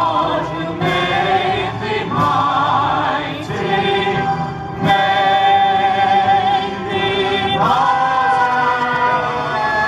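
Mixed group of male and female singers singing a 1940s wartime song together through microphones and a PA, with long held notes that waver with vibrato.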